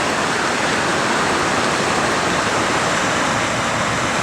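Floodwater rushing: a flooded river running fast, a loud, steady wash of noise.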